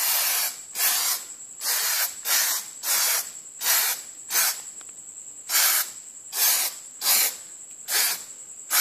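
Aerosol can of Stoner Trim Shine plastic-trim protectant sprayed in a rapid series of short hissing bursts, about two a second, with a pause of about a second midway.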